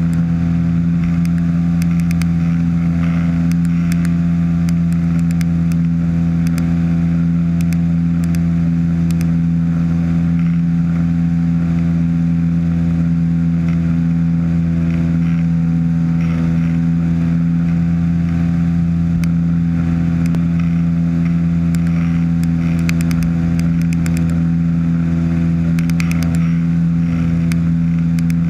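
Ultralight trike's engine and propeller running at steady cruise power in flight, a constant drone that holds one pitch throughout.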